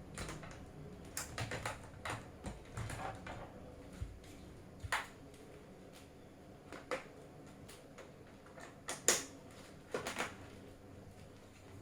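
Plastic clicks and knocks of a keyboard palm rest being handled and clipped onto a Corsair K55 RGB Pro keyboard. A quick run of clicks comes in the first few seconds, then single sharper clicks every second or two.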